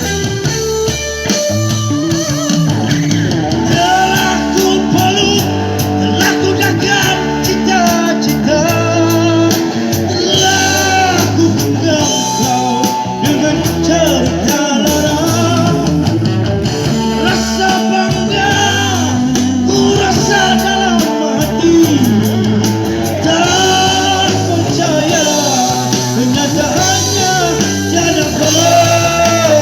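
Live rock band playing: electric guitar, bass and drums, with a melody line running over them.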